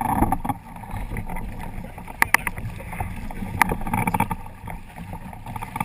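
Wind and water rushing against the hull of a Hobie Tandem Island sailing kayak, picked up close against the hull. Sharp knocks on the hull come twice just after two seconds in and once more at about three and a half seconds, as a child climbs aboard and sits down on it.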